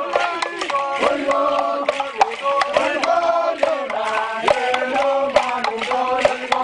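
Group of traditional dancers chanting together, several voices singing short repeated notes in parts, over the strikes of stamping feet and ankle rattles.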